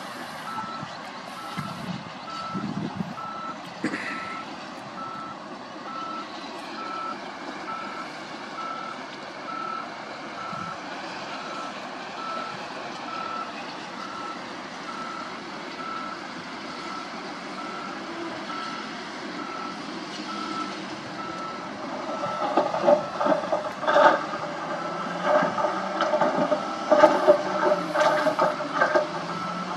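A heavy-vehicle reversing alarm beeping steadily over diesel engines running. About 22 seconds in, a tipper dump truck's load of soil and rock starts spilling from the raised bed, with a run of loud irregular knocks and clatters.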